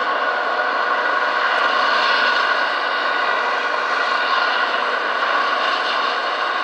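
Eurocopter EC135 T2+ helicopter's twin turboshaft engines and rotor running on the helipad before lift-off: a steady turbine whine with several even tones over a dense rushing noise, unchanging in pitch and level.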